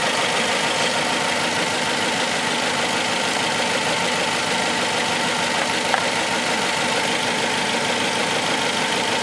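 Four-cylinder Suzuki engine idling steadily with a misfire: cylinder 3 is dead, from a shorted coil-on-plug ignition coil.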